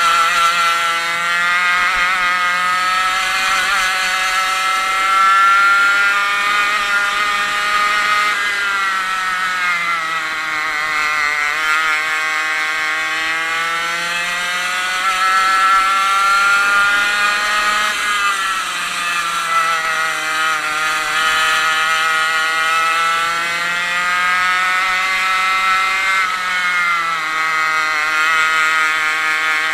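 100cc two-stroke racing kart engine heard from on board under full race load, its pitch climbing steadily as the revs build and then falling sharply three times as the driver lifts for corners.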